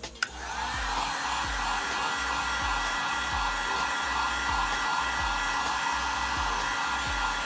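Electric heat gun switched on with a click and then blowing steadily, with a faint steady whine in the air noise. It is heating carbon-look vinyl on a steering wheel to smooth out bubbles.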